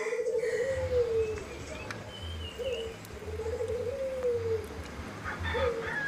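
A dove cooing, repeating its call about every three seconds: each coo is a short rising note, a trembling middle and a long falling note, twice in full after the end of an earlier one.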